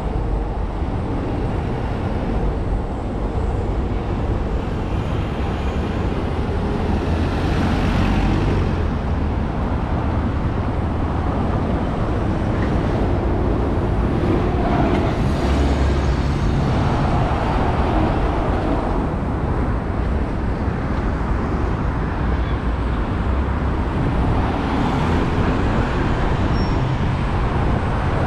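City street traffic: a steady rumble of cars and buses, swelling as vehicles pass, about three times.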